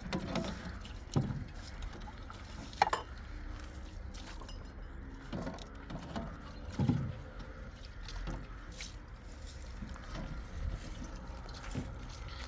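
Several scattered knocks and clinks, the sharpest about a second in and near three seconds in, over a low steady rumble.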